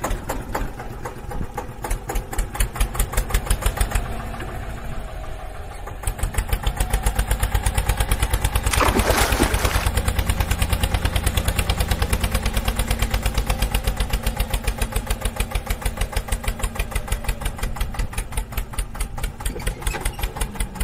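Tractor engine chugging at a steady idle-like putter, about four beats a second, with a brief noisy burst about nine seconds in.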